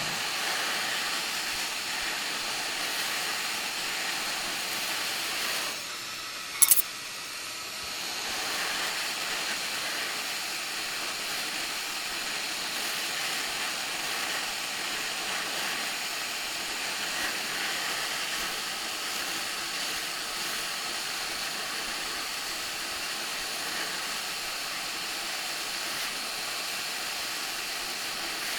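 Hot air rework station blowing a steady hiss of air onto a BGA chip to melt its solder for reflow. The hiss eases briefly about six seconds in, with one sharp click just after, then carries on.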